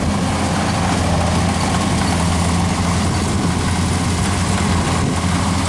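Diesel engine of a 105 rice combine harvester running steadily as it cuts rice across soft, muddy ground, with a constant low hum.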